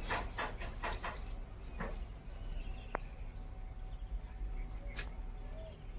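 A child sipping thick lassi from a glass: a few short slurping sips in the first second and a half, then single small clicks. Faint bird chirps repeat in the background over a low steady rumble.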